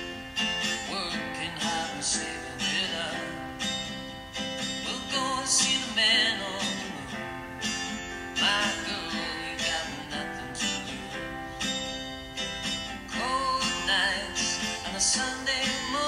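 Background music led by plucked guitar.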